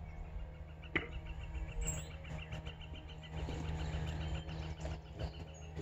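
Faint bird chirping, a quick even run of high chirps, over a low steady background rumble.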